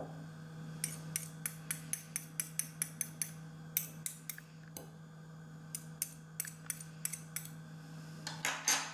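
Metal fork and teaspoon tapping, clinking and scraping against a glass bowl while mashing crumbled hard-boiled egg yolk with a creamy dressing: quick runs of clicks, about four a second, and a louder scrape near the end.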